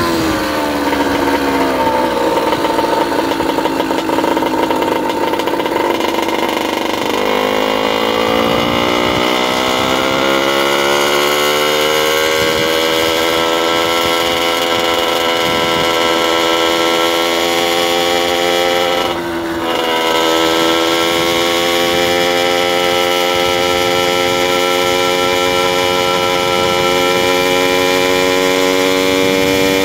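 Motorized bicycle's small engine running under way. It drops in pitch at first, then climbs as the bike speeds up and holds a steady drone. About two-thirds in it falls off briefly before picking back up.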